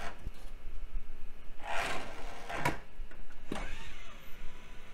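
The motorised disc tray of an IDE CD burner sliding out slowly, with a few sharp clicks as the tray and drive are handled.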